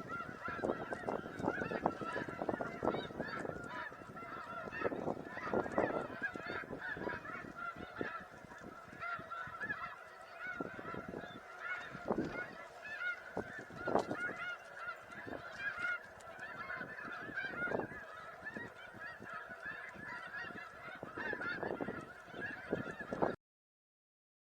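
A flock of snow geese honking, with many high calls overlapping into a continuous din. The sound cuts out abruptly near the end.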